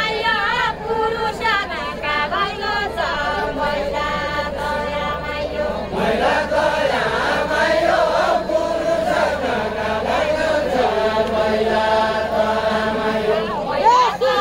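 Unaccompanied Deuda folk song: a group of voices chanting a verse together in long, drawn-out sung lines. A new phrase starts about six seconds in.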